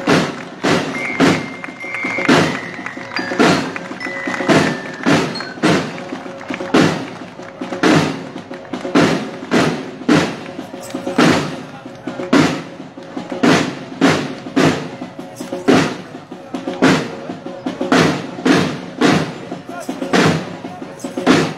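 Marching band drums beating a steady march cadence, about two strong beats a second, with snare drums. A brief high held note sounds over the drumming in the first few seconds.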